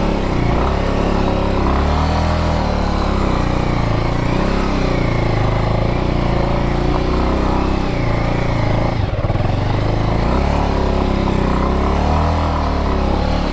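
Motorcycle engine running under load on a rough off-road climb, its pitch rising and falling with the throttle.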